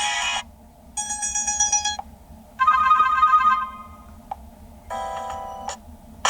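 Toscido X109 phone playing short previews of its built-in ringtones one after another: a different electronic chime or melody about every second and a half, each cut off after about a second with a brief gap before the next.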